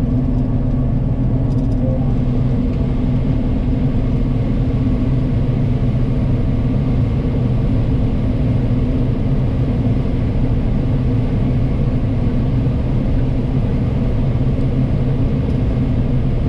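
Combine harvester running steadily under load while harvesting corn: an even, unbroken low drone.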